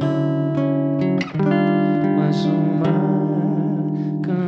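Acoustic guitar playing ringing chords, changing chord about a second in and again near the end.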